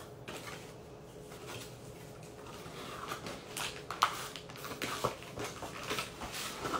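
Cardboard shipping box being opened by hand: quiet handling at first, then from about three seconds in a run of crinkles, scrapes and knocks of the flaps and packaging, with one sharp tap about four seconds in.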